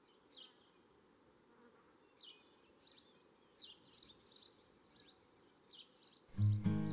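Small bird chirping: short, high notes that fall in pitch, repeated irregularly about every half second, over faint outdoor hiss. Music comes in near the end.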